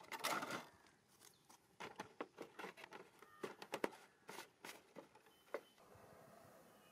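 Thin plastic bottle crackling and clicking as hands squeeze it and fit its cap: a burst of crinkling at the start, then scattered sharp clicks that stop shortly before the end.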